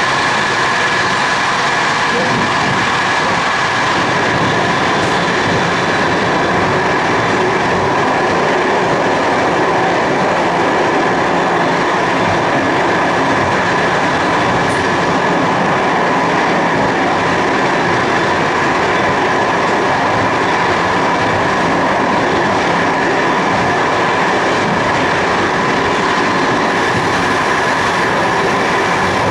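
Passenger train running steadily at speed, heard from inside at the front: a continuous rumble and rush of wheels on rail, with a steady whine running through it.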